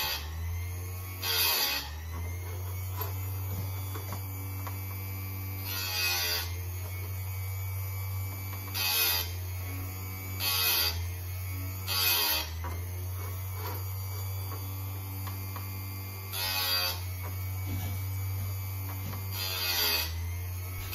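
Chicago Electric electric chain sharpener's motor humming steadily. About seven short grinding rasps come every few seconds as the grinding wheel is lowered onto each cutter tooth of an Oregon saw chain, and the motor's pitch dips briefly under each grind.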